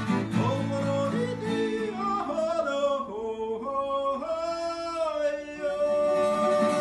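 A man sings a Swiss German folk song, accompanied by two acoustic guitars. About two seconds in, the guitars' low notes drop out, leaving the voice over lighter accompaniment.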